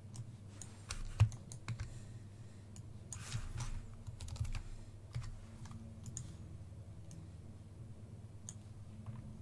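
Clicks from a computer keyboard and mouse: irregular keystrokes and clicks, busier in the first half and sparse after, over a faint steady low hum.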